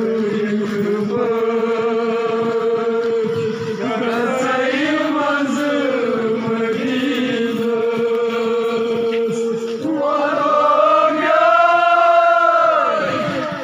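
Men's voices chanting together in long held notes. About ten seconds in, the chant gets louder and climbs in pitch, with rising and falling sweeps.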